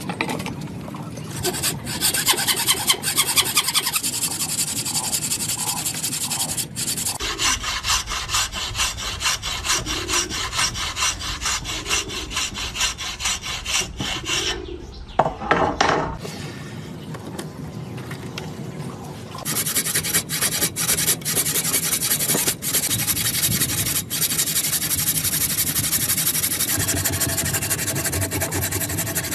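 A tool rasping and rubbing against wood with rapid, continuous strokes, broken by sudden changes in character several times.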